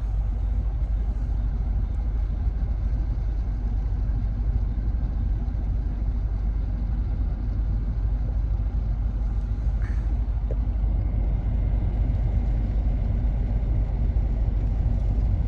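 Steady low rumble of a boat's engine running under way, with water and wind noise.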